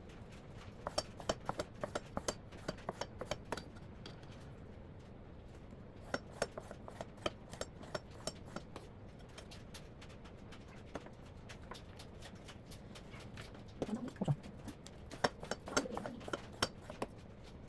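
Kitchen knife slicing raw fish fillet into thin strips on a wooden cutting board, the blade tapping the board in quick runs of clicks, about five or six a second, in three bursts. There are a few duller knocks a little before the last run.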